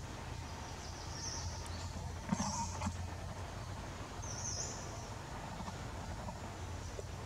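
Three short, high-pitched animal chirps, spaced a second or two apart, over a steady low outdoor rumble.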